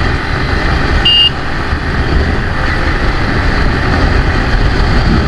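Steady rumble of wind and engine noise while riding a motorcycle in traffic. About a second in, a vehicle horn beeps once briefly.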